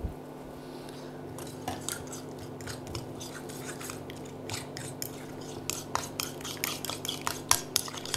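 Metal fork beating egg yolk in a ceramic bowl, the tines clicking rapidly against the bowl. The clicks start about a second in and come faster and louder in the second half.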